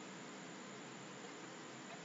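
Faint, steady hiss of a microphone's background noise, with no distinct events.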